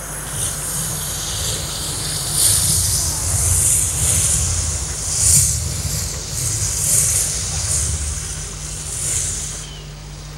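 Sound effects from the projection show's soundtrack over loudspeakers: a rushing hiss that swells and falls several times over a low rumble, dying away near the end.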